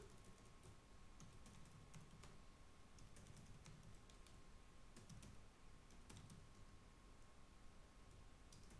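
Faint typing on a computer keyboard: irregular keystroke clicks in short runs, over a faint steady tone.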